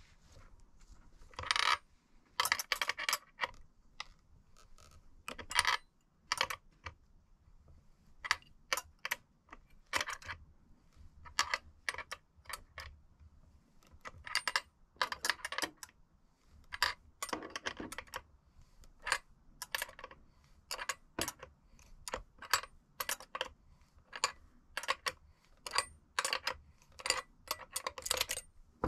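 Small metal tools and parts clinking and clicking against each other in irregular knocks and quick clusters, as bike-linkage bearing tools and hardware are handled.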